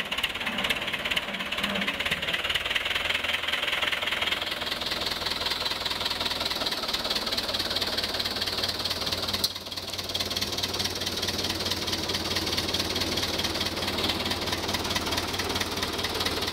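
Fordson Power Major tractor's four-cylinder diesel engine running steadily. Its tone shifts about four seconds in, and a single sharp click comes about halfway through.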